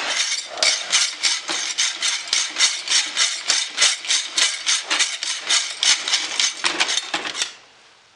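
Hacksaw cutting through the metal shaft of a 1940 GE radio's rotary switch: fast, even back-and-forth rasping strokes, about four or five a second, that stop about seven and a half seconds in.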